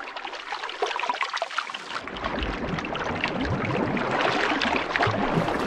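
Sea water gurgling and splashing at the surface, with a dense crackle of small pops and a low rumble of moving water building from about two seconds in.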